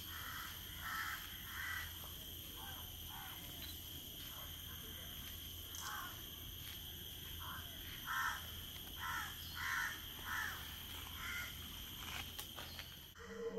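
A bird giving short calls over and over, in runs of three or four with pauses between. A steady high-pitched hum sits underneath.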